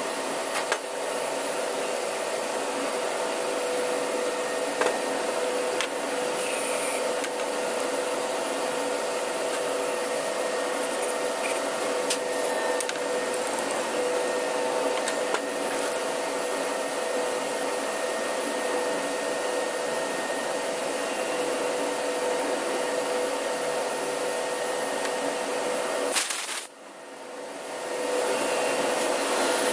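Steady machinery and ventilation noise of an engine-room workshop: a constant whooshing drone with a steady hum in it. Now and then faint clicks of small metal pump parts being handled. The noise drops out suddenly near the end and comes back about two seconds later.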